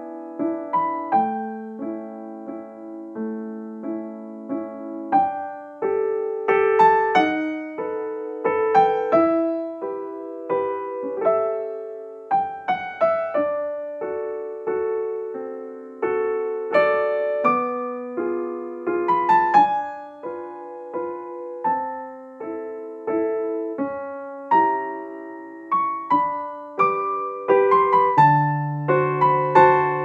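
Background piano music: single notes struck one after another over lower chords, each note fading after it is struck.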